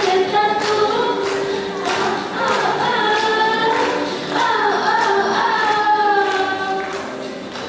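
Two women singing a duet into handheld microphones, amplified over a sound system, with long held notes.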